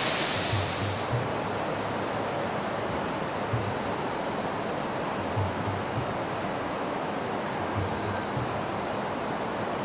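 Outdoor ambience on a mountain hillside: a high, steady insect drone over a continuous rushing hiss, with a few soft low knocks now and then.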